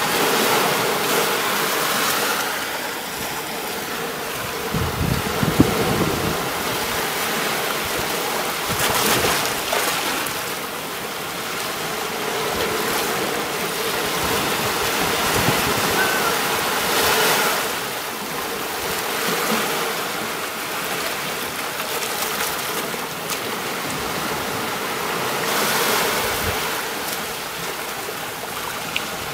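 Sea waves washing onto a beach, a steady rush of surf that swells and eases at irregular intervals of several seconds.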